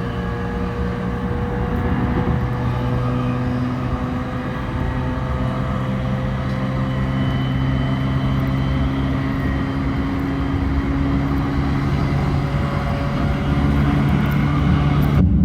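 Electric commuter train running along the line, heard from inside the carriage: a steady rumble and hum with a tone that rises slowly as it gathers speed. The sound cuts off abruptly just before the end.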